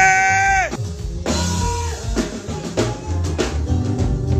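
Live band music: drum kit and guitar playing, with a long held high note at the start that bends down and cuts off just under a second in.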